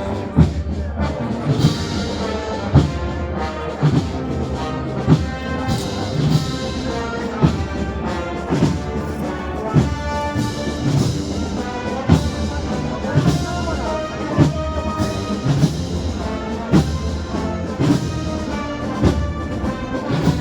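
Wind band playing a slow processional march, led by brass, with a deep drum beat about once a second.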